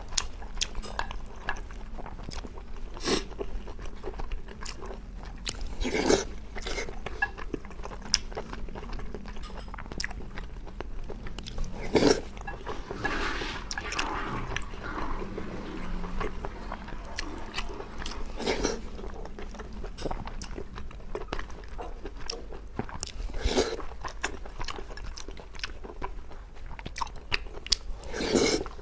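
A person chewing and biting food close to the microphone, with louder crunchy bites every few seconds.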